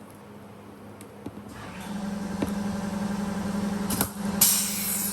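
A machine's steady motor hum sets in about two seconds in and holds, with a short burst of hissing noise near the end.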